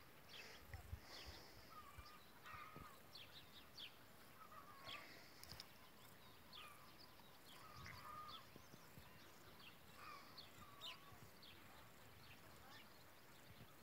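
Faint bird calls: many short, high chirps and a few lower hooked calls come every second or so over a quiet background hiss.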